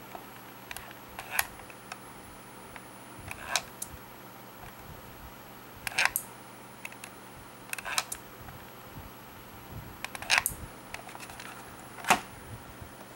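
Relay on a home-made receiver board clicking as a hobby RC transmitter switches a mains light bulb on and off: six sharp clicks, some doubled, about every two seconds.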